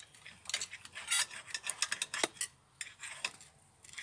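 Knife and fork scraping and clinking on a plate while cutting grilled meat: a string of short, irregular clicks and scrapes.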